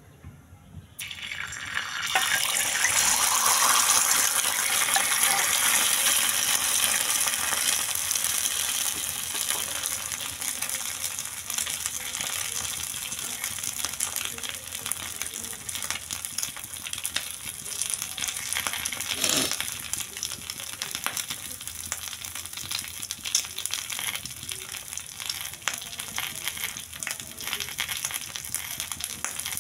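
An egg frying in hot oil on a flat iron griddle: the sizzle starts abruptly about a second in as the egg meets the oil. It is loudest in the first few seconds, then eases gradually into a steady crackling sizzle, with one sharper pop past the middle.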